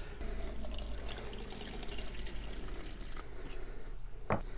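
Water from the garden-hose supply trickling through the pressure washer, a steady low wash of water sound. A single sharp click comes a little past four seconds in.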